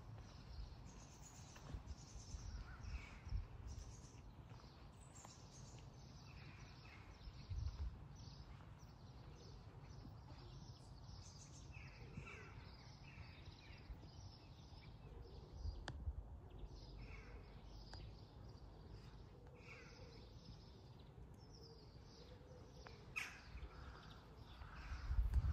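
Birds chirping and calling, many short calls overlapping at a low level, with a few soft low thumps.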